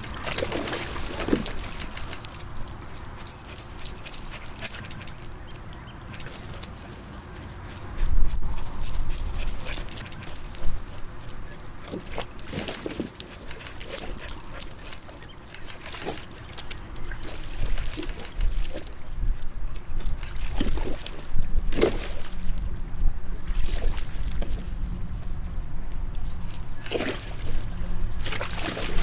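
Two wheaten terriers playing in a hard plastic kiddie pool: water splashing and lapping, with jangling collar tags and many scattered clicks and knocks.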